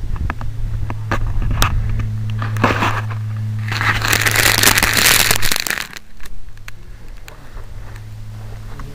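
Handling noise on a small camera mounted on an RC plane: scattered clicks and rubbing, then a dense rustling scrape from about four seconds in to five and a half as the plane is set down in the grass. A steady low hum runs underneath.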